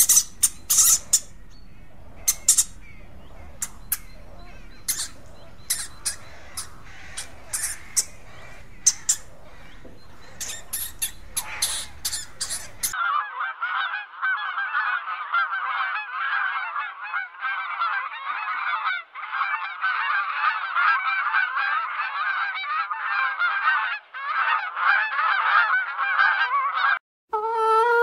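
A flock of Canada geese honking continuously through the second half. Before that come scattered short, sharp clicks and squeaks from guinea pigs over a faint hum. Just before the end a rooster starts to crow, one clear pitched call.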